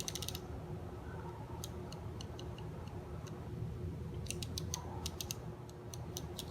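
Light clicks and ticks of small plastic and metal parts of a Technics SL-3300 turntable's automatic tone-arm mechanism being handled, some in quick clusters, over a faint steady hum.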